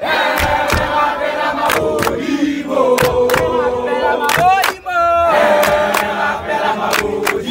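A group of schoolboys singing a chant together inside a bus, several voices at once, with sharp handclaps keeping the beat. The singing drops out briefly a little before the midpoint, then picks up again.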